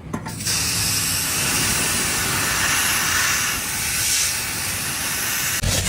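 A strong, steady hiss that starts about half a second in and cuts off suddenly near the end.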